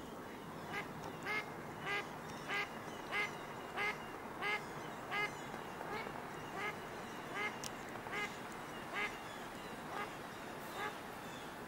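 Mallard duck quacking: a long run of about fifteen quacks, roughly three every two seconds, growing fainter toward the end.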